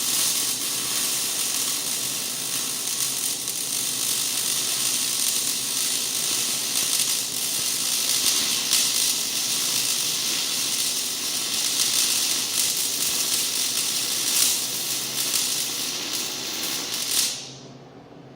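Stick welding arc crackling steadily as a bead is run, cutting off abruptly near the end when the arc is broken.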